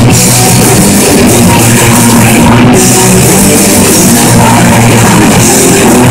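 Live punk rock band playing at full volume: distorted electric guitars, bass and a drum kit, with a woman singing. It is loud and unbroken throughout.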